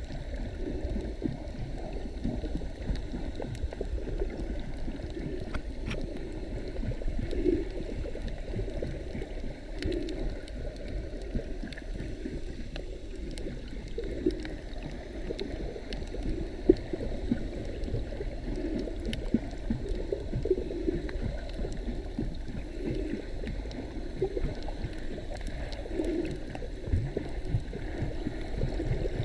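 Muffled underwater sound from a submerged camera: a steady low rumble and gurgle of water moving around it, with a few faint clicks.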